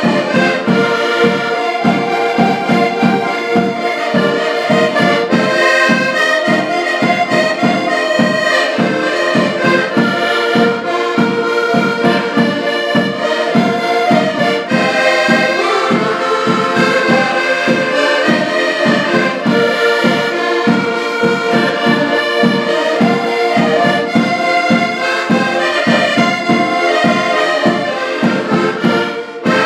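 Several accordions playing a lively tune together, with held melody chords over a steady, evenly pulsing bass-and-chord rhythm.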